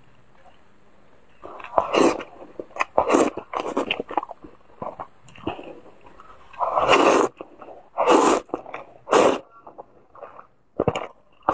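Close-miked eating sounds: slurping soft, oily wide noodles and wet chewing and lip-smacking, as a run of quick mouth noises with a few longer slurps.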